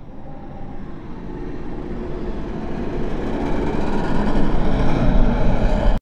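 A rumbling sound effect that swells steadily louder for about six seconds and cuts off suddenly at its peak.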